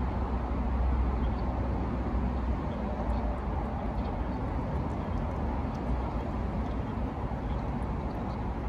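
A cat chewing and licking canned tuna, heard as faint scattered small clicks over a steady low outdoor rumble.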